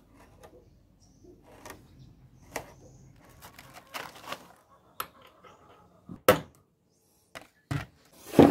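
Scattered metallic clicks and knocks from hand tools and small metal parts being handled at a bench vise. A few sharper, louder knocks come near the end.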